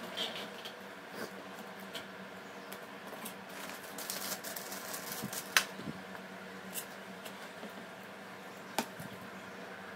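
Small clicks, taps and rustles of hands handling a smartphone and small repair tools on a cutting mat, with a sharp click about halfway through and another near the end.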